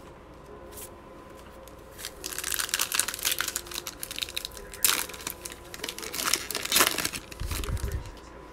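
Foil wrapper of a 2020 Mosaic football card pack being torn open and crinkled by hand: a run of crackly tearing and rustling that starts about two seconds in, loudest in a few sharp rips.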